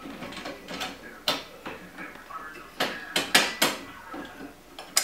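Sharp metal clinks and knocks as a coil-over shock and its mounting bolt are worked into welded steel shock tabs on a go-kart frame: one knock about a second in, a quick cluster of four around three seconds, and another near the end.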